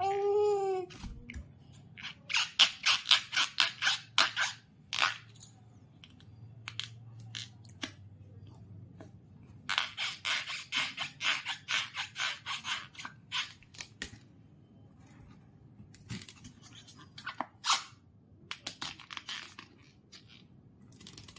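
Long latex modelling balloon squeaking under a toddler's teeth and fingers: runs of quick rubbery squeaks, several a second, in three bursts a few seconds apart. A short falling squeal comes right at the start.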